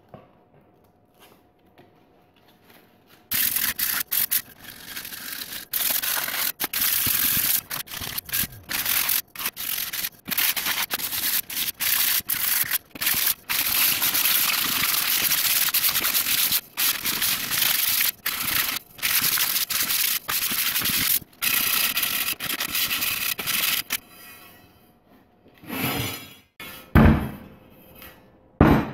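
Sanding a steel car wheel: a loud, even scrubbing rasp broken by many short gaps. Near the end come a few sharp knocks of the steel wheel being moved on the bench.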